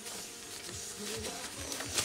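Light clicks and rustles of hands moving tools and small parts on a workbench, with music playing faintly in the background.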